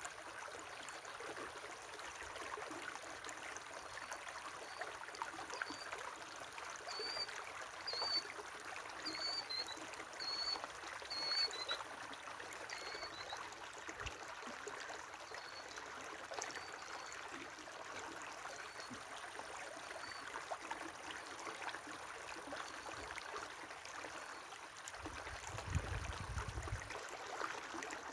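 River water flowing and trickling steadily. A small bird chirps in quick series of short high notes, mostly in the first half, with a few more notes later. A brief low rumble comes near the end.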